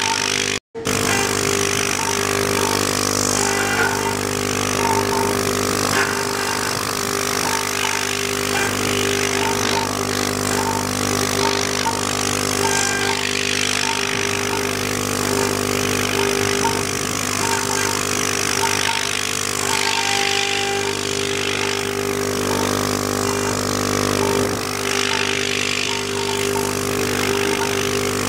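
Spindle of a 6040 CNC router running at speed: a steady whine made of several held tones, with short irregular chirps over it. The sound drops out for an instant about half a second in.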